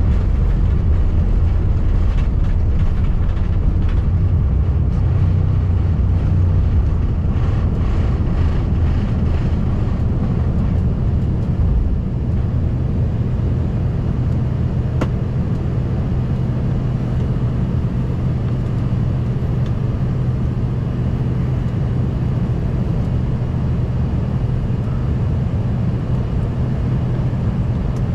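Cabin noise inside an Embraer ERJ-145 from its two rear-mounted Rolls-Royce AE3007 turbofans: a loud, steady rumble with faint rattles. About twelve seconds in the rumble eases slightly, leaving a steady low hum.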